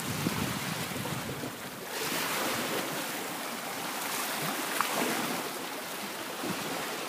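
Small sea waves washing and splashing over shoreline rocks, a steady rushing hiss, with wind buffeting the microphone now and then.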